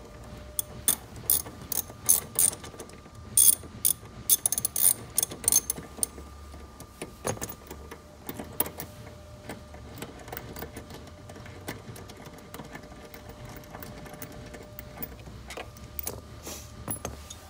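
Ratchet wrench with an 18 mm socket clicking as a Jeep JK front seat bolt is loosened and backed out. The clicks come in quick runs for the first six seconds or so, then more sparsely.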